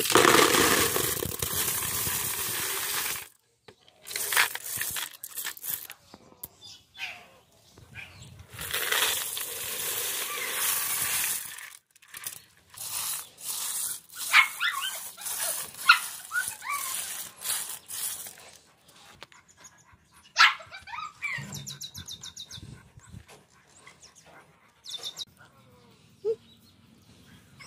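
Empty small clam shells poured from a basket into a plastic tub with a loud clatter, twice, then scattered clicks as the heaped shells are handled. A dog yelps and whimpers a few times around the middle.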